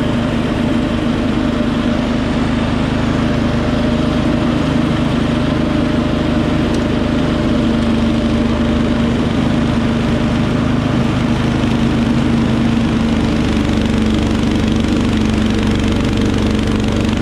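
Wheel Horse 310-8 garden tractor's engine running steadily at constant speed while the tractor drives with its front-mounted snowblower.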